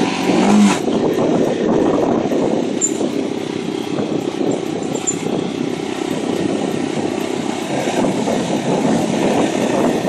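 Motorcycle engine running steadily while riding along at cruising speed, heard from the rider's own seat, with a short louder moment under a second in.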